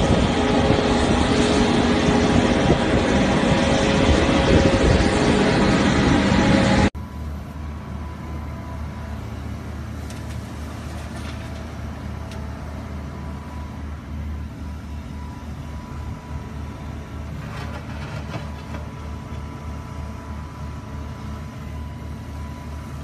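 Heavy diesel machinery running loud and steady, with a dense rushing noise. It cuts off abruptly about seven seconds in to a quieter wheeled excavator's diesel engine running steadily at work, with a few faint knocks.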